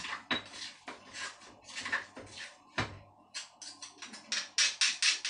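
Pestle pounding in a stone mortar, the strokes uneven at first, then a faster, louder run of about five strikes a second near the end.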